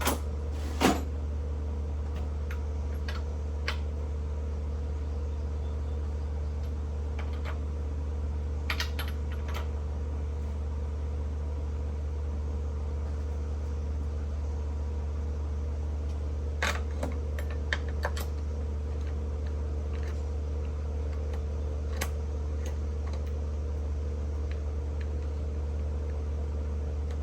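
Steady low hum of a running exhaust fan, with scattered light clicks and clinks of small metal parts and tools being handled, a few at a time, while a chainsaw bar is being changed.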